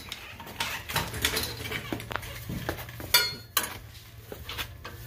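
Metal hand tools clinking and clattering as they are picked up and handled: a series of light metallic clicks and knocks over a low steady hum.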